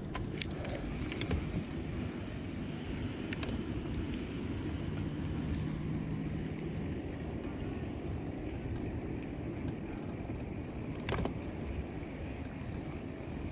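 Steady wind buffeting the microphone on an open boat, with a few faint clicks and a brief low hum in the middle.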